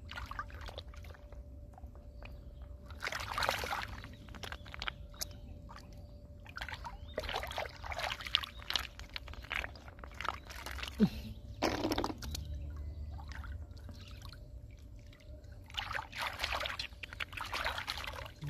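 Hands sloshing and splashing in shallow muddy water while groping in the mud and scooping up snails, in irregular bursts every few seconds.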